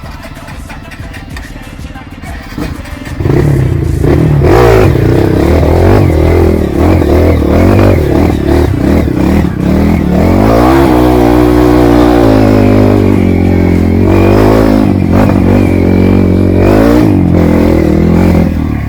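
Trail dirt-bike engine running quietly at first, then revved hard from about three seconds in. Its pitch rises sharply around the middle, holds high and wavers with the throttle.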